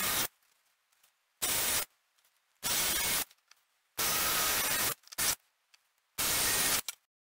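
Cordless drill boring holes through formply board, one hole after another: short bursts of drilling, each under a second, with brief pauses between.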